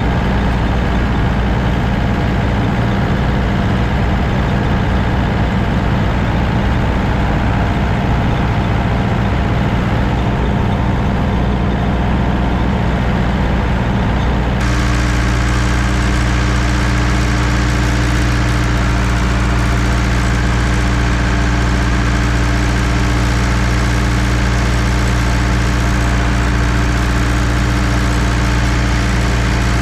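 An engine running steadily at constant speed. Its tone changes abruptly about fifteen seconds in, then holds steady again.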